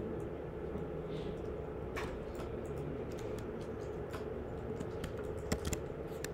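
Computer keyboard keystrokes, scattered clicks a few at a time, with a couple of sharper clicks near the end, over a steady low hum.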